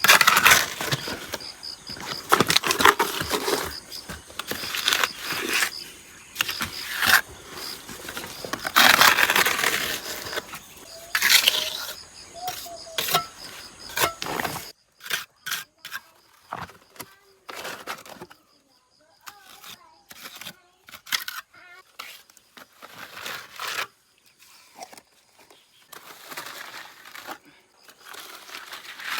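Building work with bricks and mortar: scraping and knocking, dense for about the first half, then thinning to scattered taps and clicks.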